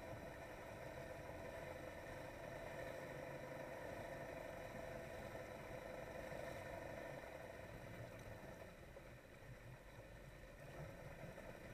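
Engine of a Polaris SL 900 personal watercraft running steadily at low speed, a fairly quiet, even hum that dips slightly about eight seconds in.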